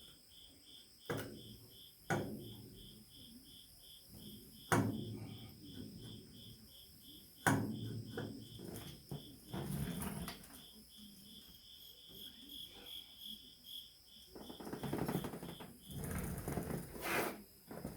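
Hand tools knocking and clattering against the tractor during repair work: several sharp knocks, then a longer stretch of rattling near the end. Under them a cricket chirps steadily, about two to three chirps a second.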